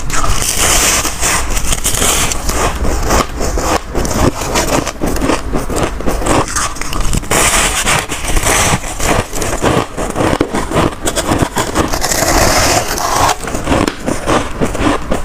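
Mouthfuls of fluffy freezer frost being bitten and chewed: dense crunching and crackling, with louder crunchy bites at the start, about halfway through and near the end.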